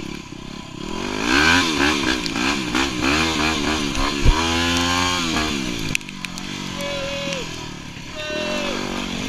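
Yamaha WR250R's 250 cc single-cylinder four-stroke engine being ridden on a trail, its revs rising and falling repeatedly with the throttle. There is a sharp thump about four seconds in, then a smooth climb in revs, and the engine runs lower and quieter from about six seconds.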